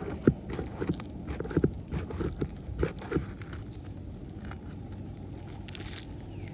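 Shingle snake working under an asphalt shingle to reach the nails: a run of sharp metal clicks and scraping knocks for about three seconds, then it goes still.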